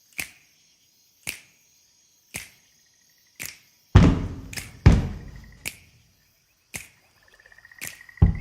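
Sparse intro of a pop/R&B song. Sharp clicks come about once a second, deep bass hits land about four and five seconds in, and a rapid electric buzz sounds briefly twice, the second near the end.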